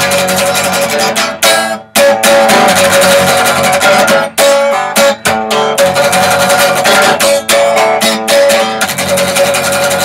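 Solo electric guitar strumming chords, with brief stops about two seconds in and again around four and five seconds.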